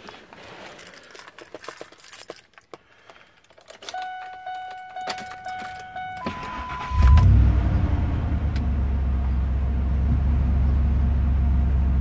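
Keys rattling in the cab, then the truck's pulsed electronic warning chime. About seven seconds in, the 2001 Ford F-150's 5.4-litre V8 cranks, catches and settles into a steady idle without surging, its idle air control valve freshly cleaned.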